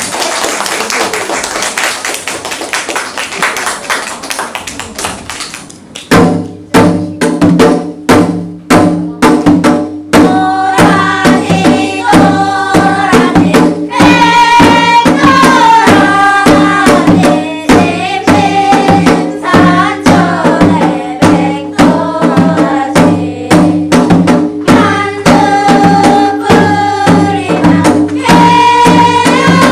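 Children's choir singing a Korean folk-song (minyo) medley over a steady janggu hourglass-drum beat and a low sustained drone. For about the first six seconds there is only an even noise like clapping; the drumming starts about six seconds in and the singing a few seconds later.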